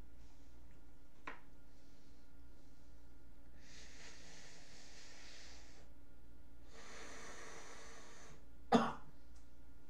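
A man taking two long, audible breaths, then giving one short, sharp cough near the end, the loudest sound.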